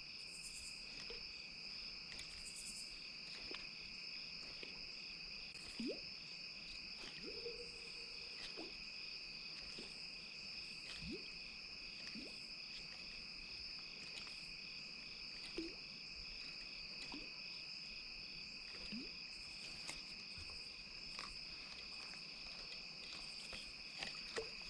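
Crickets trilling steadily in an evening insect chorus, faint, with a fast even pulsing.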